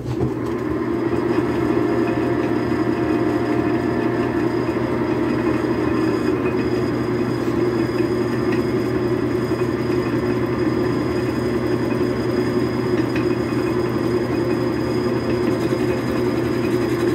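Metal lathe running steadily with a large pulley turning in its chuck while a Sandvik boring bar is hand-fed into the pulley's bore, an even, constant mechanical hum.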